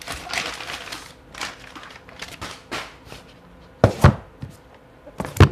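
Plastic bag rustling, then cardboard boxes handled and set down on a desk: two quick knocks about four seconds in and a louder thud near the end.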